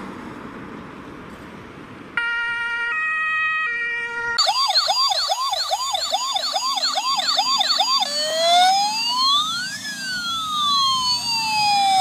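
A toy fire truck's electronic siren runs through its patterns. About two seconds in comes a two-tone hi-lo, then a fast yelp of about three sweeps a second, and from about eight seconds a slow wail that rises and falls. It is preceded by a soft hiss that fades out.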